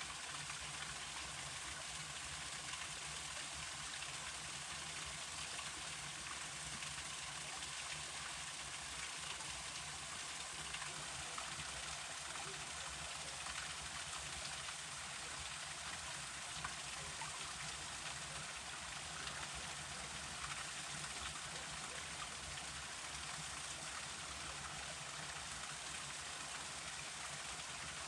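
Forest river flowing, a steady rush of running water with no change in level.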